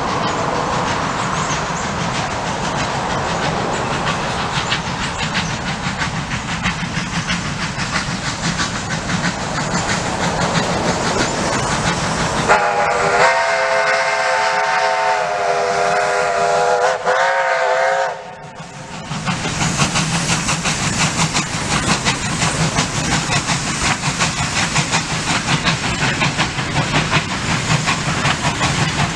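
Victorian Railways J-class steam locomotive J549 and its train of goods wagons and wooden carriages passing at speed, the engine working and the wheels running steadily. About twelve seconds in its steam whistle sounds one long blast and then a short one. Afterwards the carriage wheels clatter past.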